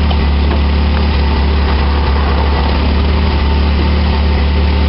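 A Reliant Scimitar GTE's 3.0-litre Essex V6 idling steadily on its first run after a head gasket replacement.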